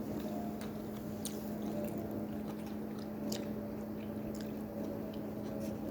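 Close-up chewing and biting, with scattered short clicks and smacks, over a steady low hum.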